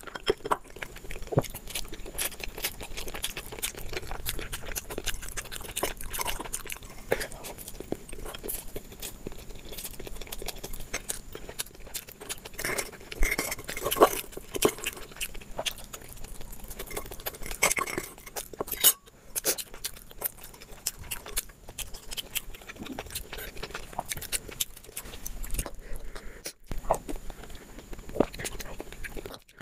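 Close-miked eating sounds: a metal spoon clinking and scraping inside a clay cup of noodles, with chewing in between. The clicks and scrapes come irregularly.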